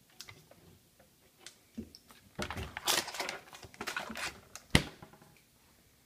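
Handling noise as a multimeter's temperature probe is placed inside a freezer: scattered clicks and knocks, a couple of seconds of rustling in the middle, then one sharp click a little before the end.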